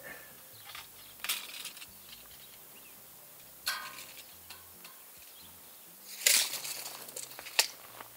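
Occasional light knocks and scuffs of outdoor handling and footsteps, the loudest a short scrape about six seconds in.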